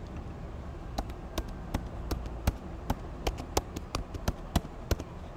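Computer keyboard keys being typed: a quick, uneven run of sharp clicks, several a second, starting about a second in.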